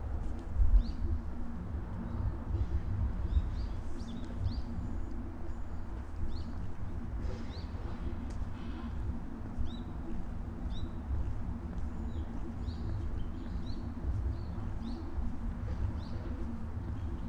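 Small birds chirping: short high chirps come in scattered runs throughout, over a steady low rumble, with a brief thump about a second in.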